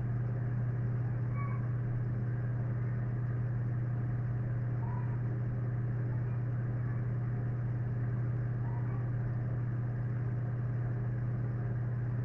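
Steady low hum at an even level, with faint higher overtones.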